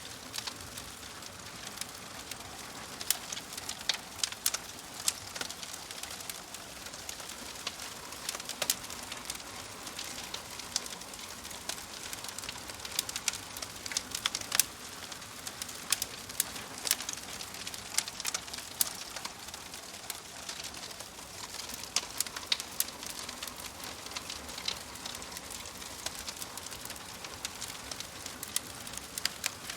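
Wood fire crackling steadily, with frequent irregular sharp pops and snaps over a soft hiss.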